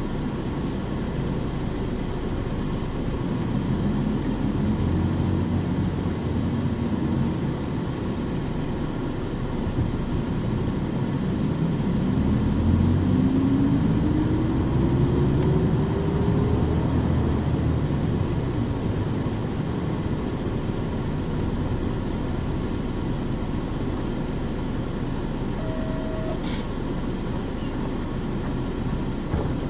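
Nissan Diesel KC-UA460HSN one-step city bus with a Fuji Heavy Industries 7E body, running on its route, its diesel engine rumbling. About a third of the way in a rising whine climbs as the bus picks up speed. Near the end comes a short beep and a click.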